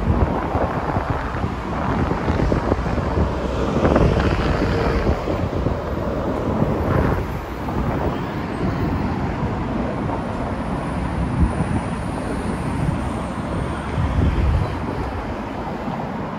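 Road traffic on a multi-lane city street: a steady wash of car tyre and engine noise with vehicles passing close by, and wind buffeting the microphone.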